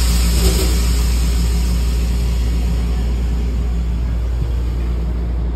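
Steady low rumble and hum of a commuter train heard from inside the passenger coach as it moves along the tracks. A hiss is loudest in the first second or two and then dies away.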